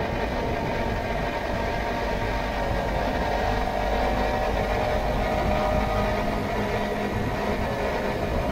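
Honda CBR250RR's parallel-twin engine running at a steady idle.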